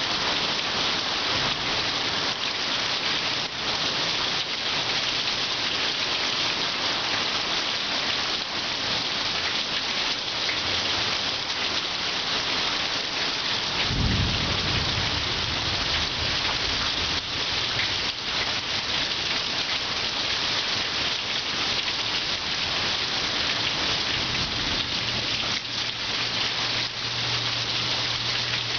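Heavy rain falling hard and steadily in a thunderstorm. About halfway through, a low rumble of thunder breaks in suddenly and fades over a few seconds.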